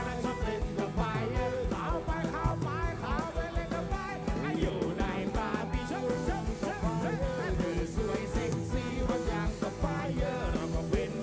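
Live rock band playing through a large concert PA, with a steady drum beat under pitched melody lines.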